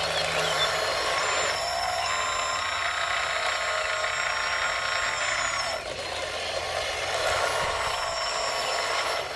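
Radio-controlled model construction machine running: a steady, high whine of its small electric motors and gearing. It shifts in pitch and level about a second and a half in and again near six seconds.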